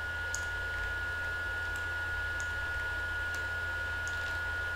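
Steady electrical hum and hiss with a faint high whine, broken by about six faint clicks of a computer mouse.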